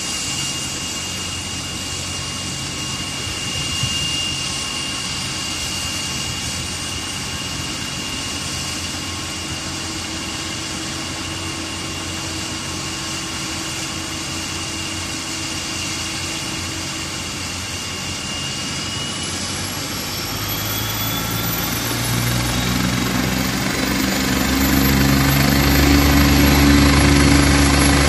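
Agusta A109 Power helicopter's twin turbine engines running on the ground with a steady high whine and rotor beat. About two-thirds of the way in the whine rises in pitch and the low rotor beat grows louder as the engines spool up for takeoff.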